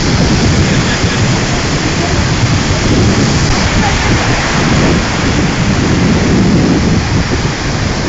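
Devil's Throat cataract of Iguaçu Falls: a loud, steady rush of massive falling water.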